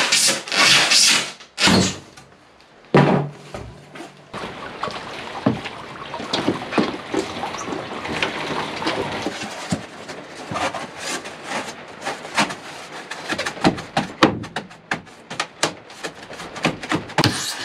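Old bread knife sawing through foil-faced rigid foam insulation board, a loud scratchy racket of strokes for the first second or so. A single thud comes about three seconds in, followed by a long stretch of scraping with many small crackling clicks from the foam board.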